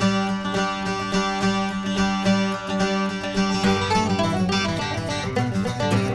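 Intro music on plucked string instruments, picked notes over a steady low note, turning busier and faster about three and a half seconds in.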